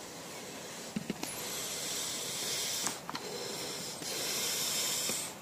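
Air hissing out of a balloon buried under sand in two bursts, the first starting about a second in and lasting under two seconds, the second shorter and near the end, with a few faint clicks between. The balloon is deflating, and the sand above it sinks into a caldera.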